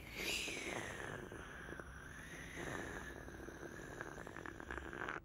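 Slow, drawn-out slurping of custard from a bowl: a steady rough sound that dips a little in pitch at the start, with a few small clicks near the end.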